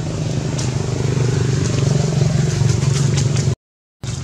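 A motor engine running steadily with a low drone. It cuts out completely for a moment near the end, then carries on.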